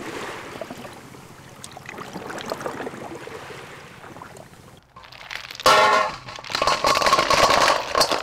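Sea snail shells clattering against a metal bowl as they are handled and dropped in, with a ringing note from the bowl. Before this, about five seconds in, there is only low background noise.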